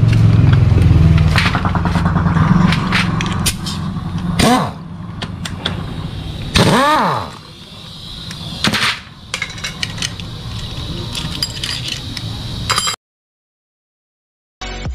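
Metal tools clinking and scraping on a scooter engine being dismantled, with a low engine rumble under the first few seconds. Two short rising-then-falling cries come about four and a half and seven seconds in, and the sound cuts out completely near the end.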